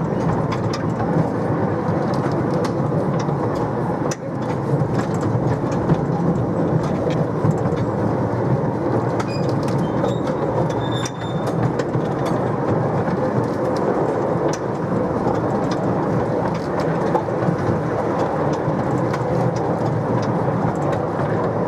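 A 12½ in gauge miniature railway train running steadily along the line, with a constant rumble and irregular sharp clicks of the wheels over the rail joints.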